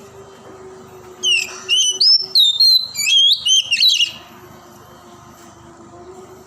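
Oriental magpie-robin singing a quick run of varied whistled notes that slide up and down, starting about a second in and lasting about three seconds, over a low steady hum.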